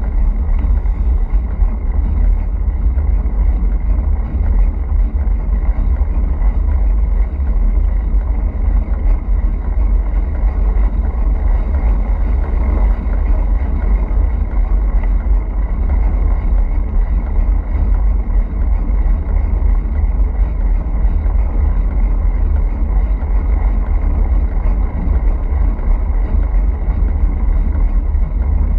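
Wind buffeting the microphone of a bike-mounted camera while riding at speed: a loud, steady, deep rumble with road noise underneath.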